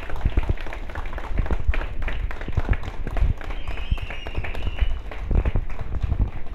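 A crowd clapping by hand, irregular and close, with loud knocks and rumble from the jostling around. About halfway through, a high thin tone is held for a second or so.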